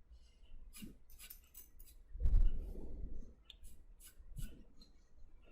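Short drawing strokes on paper, about ten quick scratches in a row, with a louder low thump about two seconds in.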